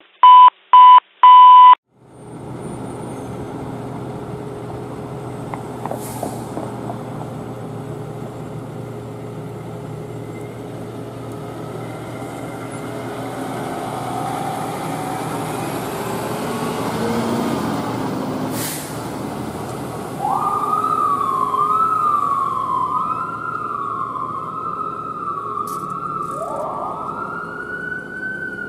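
Three short, loud beeps, then a Pierce fire ladder truck's diesel engine running and building as the truck pulls out. About two-thirds of the way through its siren starts with a fast rising-and-falling warble, and near the end a second siren winds up in pitch and then slowly falls.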